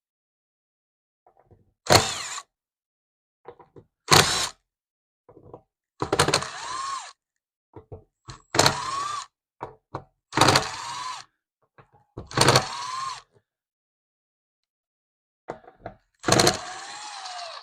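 Cordless drill run in short trigger pulses, about one every two seconds, its motor whine rising and falling with each pull, backing out fasteners.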